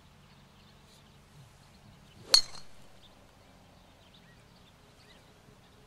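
Golf driver's clubhead striking a teed ball once, about two seconds in: a single sharp click with a short high ring. It is the first ball of a three-ball tempo drill, swung at about a quarter of full power.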